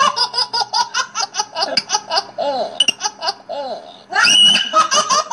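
Hearty laughter in quick repeated ha-ha sounds. About four seconds in it gives way to a high-pitched squeal lasting about half a second.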